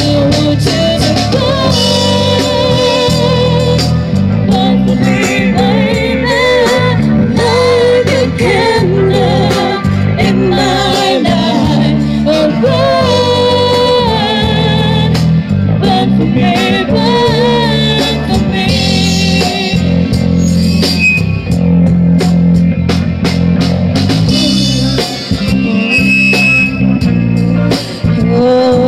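Live rock band playing: electric guitars, keyboard and drum kit, with a singer's voice over them.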